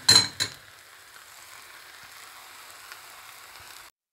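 Noodles and egg frying in a pan with a steady sizzle. In the first half second there is a short, loud clatter and scrape as scrambled egg is pushed off a plate into the pan with a wooden spatula. The sound drops out for a moment near the end.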